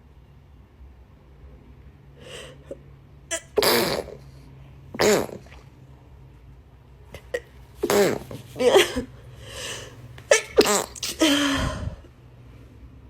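A person sneezing several times in a row, with sharp breaths drawn in between, set off by a nasal swab pushed up the nose. The sneezes come at uneven intervals, the last a long drawn-out one.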